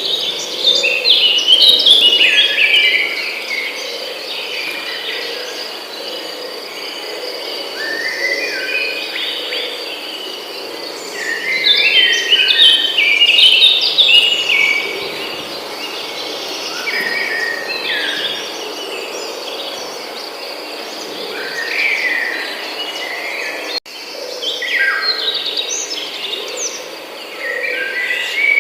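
Songbirds singing in bursts of quick chirping phrases, many notes falling in pitch, over a steady high insect trill such as crickets. The sound drops out for a moment a little before the end.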